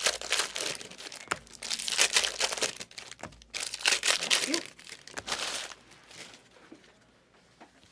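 Plastic trading-card packaging crinkling and tearing as it is handled and opened, a busy crackling rustle that dies away near the end.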